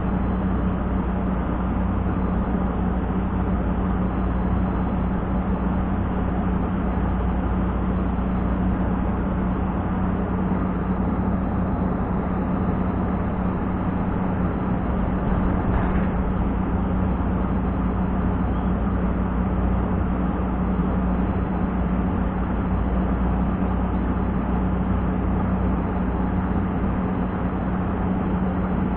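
Wind buffeting the microphone: a steady rushing noise with a constant low hum under it.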